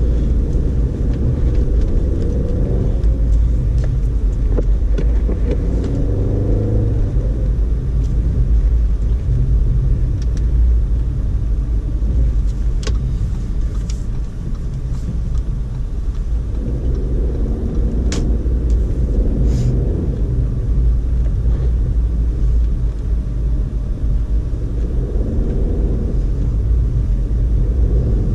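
2012 Audi A4 Quattro driving on the gas through deep unplowed snow: steady heavy rumble of engine and tyres churning snow, with the engine note rising and falling a few times. A few sharp clicks are heard about halfway through.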